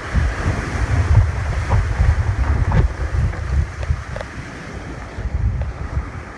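Strong storm wind buffeting the microphone: a loud, gusting low rumble with a hiss of wind over it, rising and falling with each gust and easing a little near the end.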